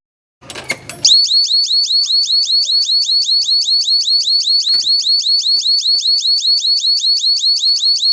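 Fire door alarm sounding: a loud, high electronic tone sweeping rapidly over and over, several sweeps a second. It starts about a second in, after a few clicks.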